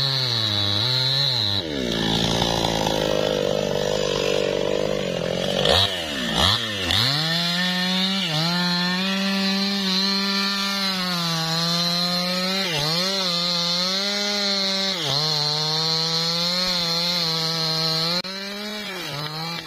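New West 628 two-stroke chainsaw cutting into the trunk of a lamtoro (leucaena) tree. Its engine note sags and recovers again and again as the chain bites into the wood, with two sharp dips near the middle. It turns quieter shortly before the end.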